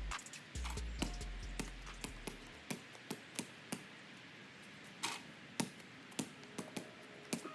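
Background music whose deep bass cuts off about two and a half seconds in, leaving a run of scattered sharp ticks at a low level.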